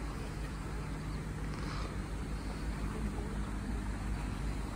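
Engine of the passenger boat Elfkungen running with a steady low hum as the boat moves slowly through the lock close by.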